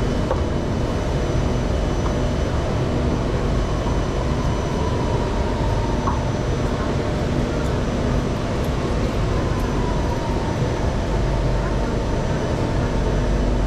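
Steady hum and hiss of a Singapore MRT train standing at an underground station platform with its doors open, unchanging throughout.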